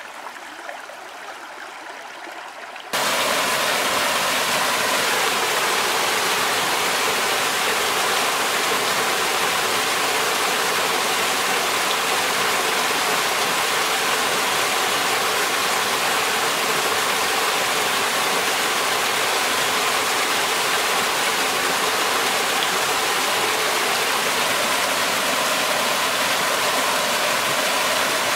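A quieter steady hush for the first three seconds, then a sudden jump to the loud, steady splashing of a small waterfall pouring into a rock pool.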